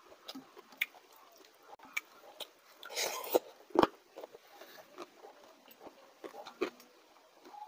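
Close mouth and hand sounds of a man eating water rice (panta bhat) with his fingers: wet rice squelching in the bowl, chewing and lip smacks, with scattered small clicks. About three seconds in a handful goes to the mouth with a louder wet slurp and a sharp smack.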